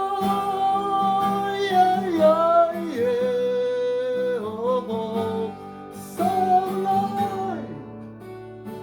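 A voice singing long held wordless notes that slide between pitches, over guitar accompaniment. The voice stops near the end, leaving the guitar on its own.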